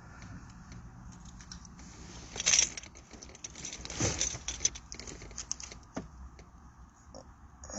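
Scattered clicks and rustling, with a louder hissing rustle about two and a half seconds in and another about four seconds in.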